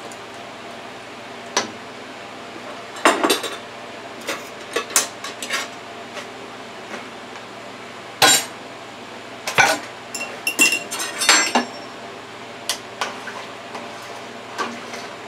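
A mug and metal utensils clinking and knocking against a stainless steel stockpot and the countertop: scattered separate strikes, a few ringing briefly.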